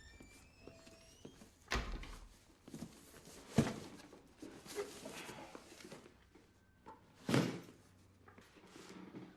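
Kitchen handling sounds: a few separate knocks and thuds, as of cupboards, utensils or cookware being set down, the loudest about three and a half and seven seconds in.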